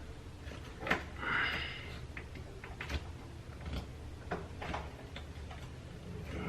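Sharp, irregular clicks and a short scrape from a small hand tool working components off a small electronic circuit board, over a steady low hum.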